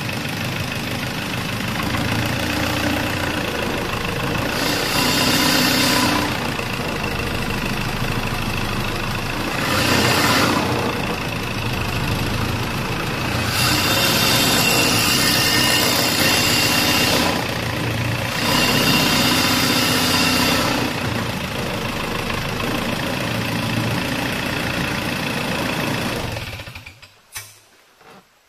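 Small boat's motor running steadily, getting louder for a few seconds several times, then cutting out near the end as it is switched off.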